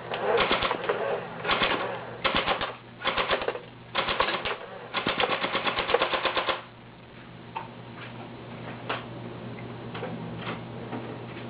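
Double Eagle M83 electric airsoft rifle firing in rapid-fire bursts, about six of them with short pauses between, the last and longest ending at about six and a half seconds. After that come a few faint single clicks.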